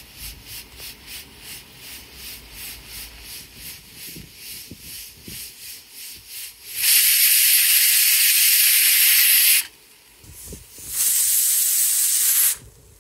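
Hawkins Contura pressure cooker venting steam at its pressure regulator weight. A soft hiss pulses about three times a second, then comes a loud hissing whistle of steam about seven seconds in that lasts nearly three seconds, and a second, shorter one near the end. The whistles are the sign that the cooker is at full pressure, with the heat set low to hold about four whistles a minute.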